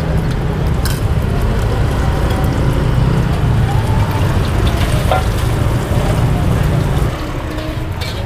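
Busy street-food stall noise: a loud, steady low rumble that eases about seven seconds in, with a few sharp clinks of a spoon beating egg in a tin mug about a second in.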